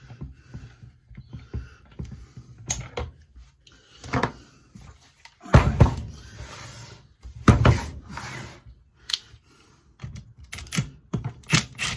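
Irregular knocks and clunks of a used Stihl MS230 chainsaw and tools being handled, as the saw is worked on after a failed compression test. The two loudest clunks come about halfway through and about two seconds later.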